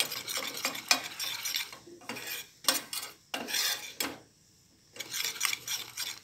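Metal spoon stirring and scraping around a small stainless-steel saucepan of melted butter sauce, in quick uneven strokes with a short pause about four seconds in.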